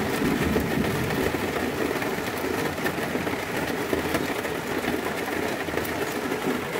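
Heavy rain drumming steadily on a van's roof, heard from inside, a dense even rush with countless small ticks.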